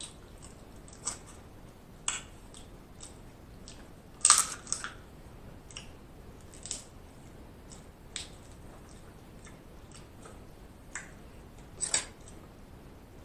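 Shellfish shell cracking and crackling as it is peeled apart by hand: scattered short cracks and clicks, the loudest about four seconds in and again near the end.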